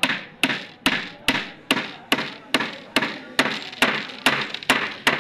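Steady hammer blows, about two strikes a second, a dozen or so in a row, stopping near the end.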